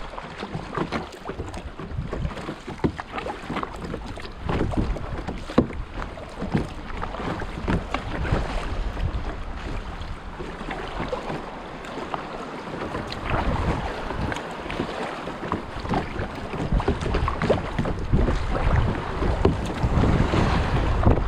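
Sea kayak paddling on gentle waves: irregular splashes and knocks of the paddle and water slapping the hull over a steady wash of sea, with wind buffeting the microphone in gusts, heaviest near the start and near the end.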